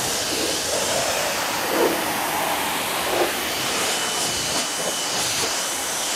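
Water spraying from a hose nozzle onto a car's bodywork as it is rinsed: a steady hiss.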